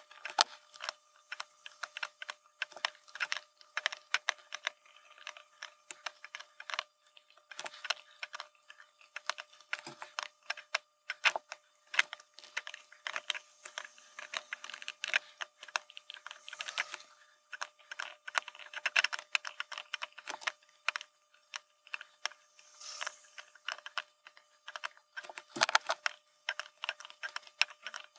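Soldering LED pins on a circuit board: rapid, irregular small clicks and ticks as the soldering iron tip and solder wire touch the pins, over a faint steady whine.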